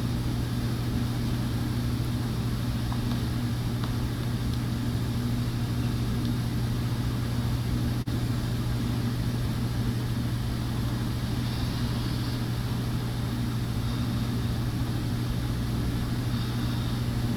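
A steady low hum that holds even throughout, with a brief drop about eight seconds in.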